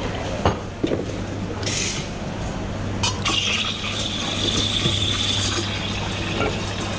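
Espresso machine steam wand hissing as it steams oat milk in a stainless steel jug: a short burst about two seconds in, then a longer hiss with a steady high whistle from about three seconds in to about five and a half. A low machine hum runs underneath, with a couple of metal clinks near the start.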